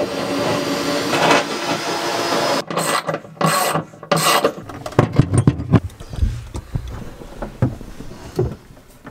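Hand work in a wooden cupboard: a stretch of scraping and rubbing, then a run of short knocks and clunks around the middle, growing quieter near the end.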